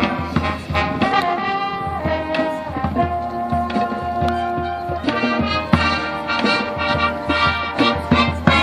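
Marching band playing, with the brass section holding loud chords over a steady drumline beat.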